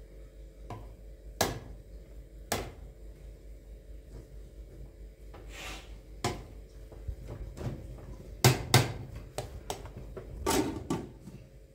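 Irregular knocks and clatters of hard objects, a dozen or so sharp ones over a faint steady hum, the loudest pair about eight and a half seconds in.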